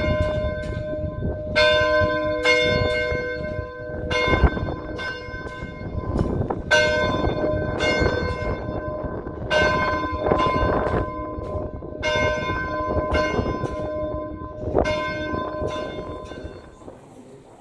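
Church bells ringing: quick, uneven strikes several times a second, each ringing on with steady pitches, dying away near the end.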